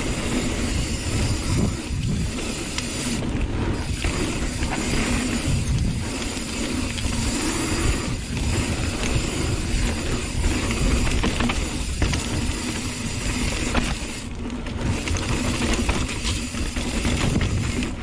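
Hardtail mountain bike riding fast down a dirt flow trail: steady wind rush on the microphone, tyres rolling over dirt, and the bike's chain and frame rattling over bumps with many short clacks.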